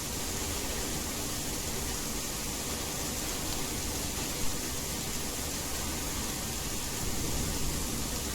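Steady, unbroken hiss of heavy rain mixed with white noise, with a single brief tick about halfway through.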